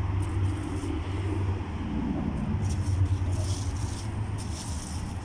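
Steady low rumble of outdoor background noise, with brief faint rustling in the second half.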